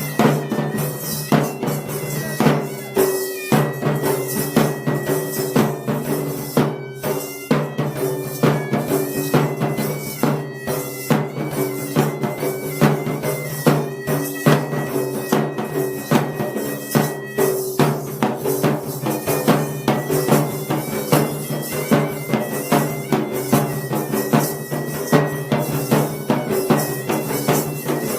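Sri Lankan hewisi ensemble playing: fast, dense drumming with a shrill reed pipe carrying a stepwise melody above a steady low drone.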